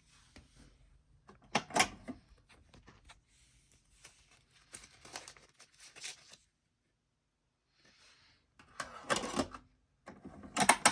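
Clicks and rattles in four short bursts of handling noise, with no music playing.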